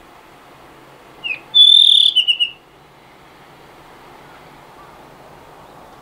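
Blue rock thrush singing one short phrase about a second in: a brief note, then a loud clear whistle that drops into a quick run of lower notes. A faint steady hiss lies underneath.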